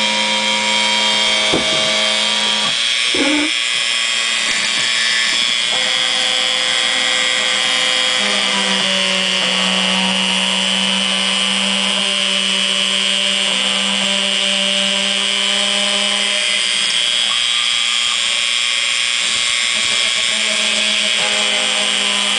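Dremel rotary tool spinning at high speed with a steady high whine as the bit engraves into a wooden board, driven by a homemade CNC mill. Under it the machine's axis drives hum in tones that change pitch every few seconds as the cutter moves.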